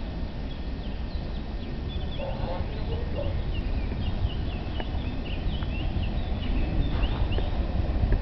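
Small birds chirping in many quick high calls, thickest in the middle, over a steady low rumble.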